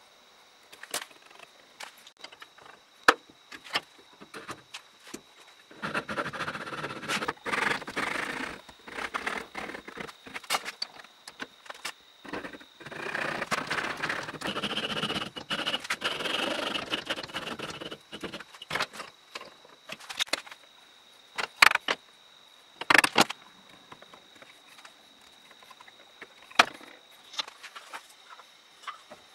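Hand saw cutting wood in two runs of quick back-and-forth strokes, each several seconds long. Before and after, there are scattered clicks and knocks of wooden pieces and small tools being handled on the bench.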